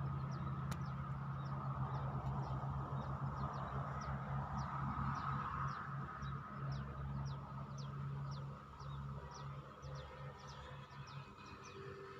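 Small birds chirping in short, high, quickly falling notes, about two a second, over a steady low motor-like hum that fades away about two-thirds of the way in.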